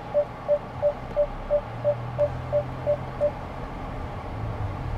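An electronic beeper sounding a quick run of short, identical high beeps, about three a second, which stop about three seconds in, over a steady low hum.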